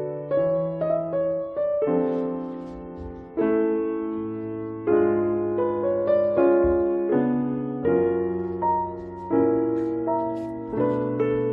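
Background piano music: a slow, gentle melody over chords, a new note or chord struck about every second.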